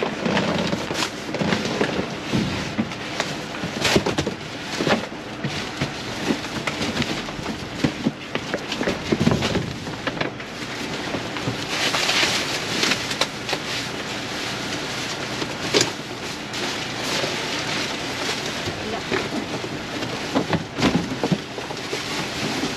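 Rummaging through trash in a dumpster: plastic bags crinkling and cardboard boxes being shifted and knocked about, with irregular knocks and scrapes and a louder burst of crinkling about twelve seconds in.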